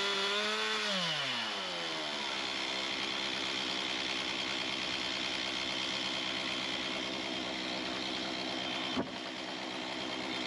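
Stihl MS391 64.1cc two-stroke chainsaw on a chainsaw mill coming off full throttle at the end of a cut. Its engine note falls over about a second, then the saw idles steadily. A single sharp knock sounds about nine seconds in.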